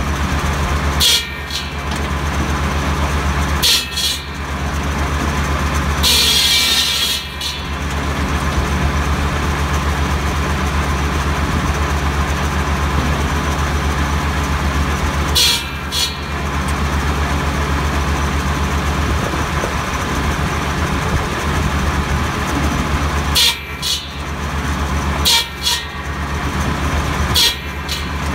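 Tractor-mounted buzz saw (cordwood saw), its big circular blade driven by a Kubota B7100's three-cylinder diesel engine running at a steady speed, cutting tree branches into firewood. Each cut is a brief burst of high-pitched noise over the steady hum, about seven in all; the longest and loudest, about six seconds in, lasts over a second.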